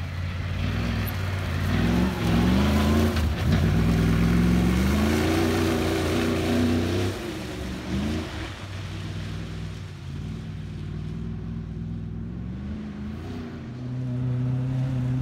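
Comp safari off-road racer's engine revving hard, climbing in pitch and stepping through gear changes as it accelerates, loudest in the first half, then fading as it pulls away. Another vehicle's engine comes up near the end.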